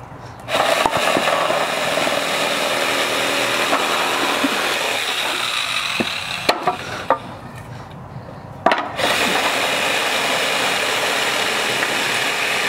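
Corded electric jigsaw cutting through wooden boards. It runs for about five seconds, stops with a few sharp knocks of wood, then starts again about nine seconds in and cuts steadily.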